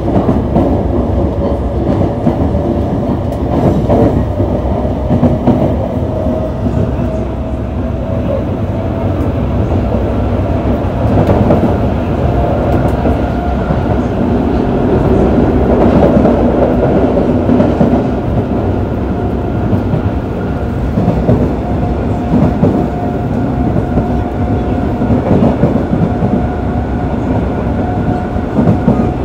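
Yokohama Municipal Subway 3000A train running at speed, heard from inside the car: wheels rumbling on the rails, with steady tones from its Mitsubishi GTO-VVVF traction motors that shift slightly in pitch.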